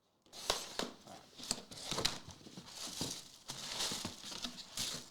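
Plastic packaging crinkling and rustling in irregular short bursts as trading-card packaging is handled and opened.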